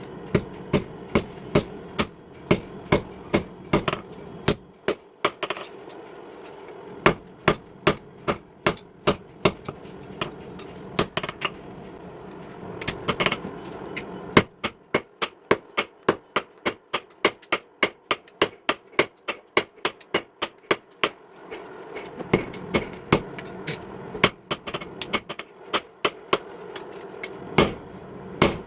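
Hammer blows on steel at the anvil, forging a car leaf spring: runs of sharp ringing strikes, mostly about two a second and quicker for a stretch in the middle, broken by short pauses, over a steady low hum.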